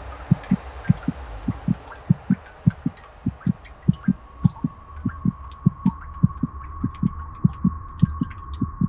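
Heartbeat sound effect: low double thumps repeating steadily about every two-thirds of a second over a low hum. A steady high tone comes in about four seconds in, with scattered faint clicks above.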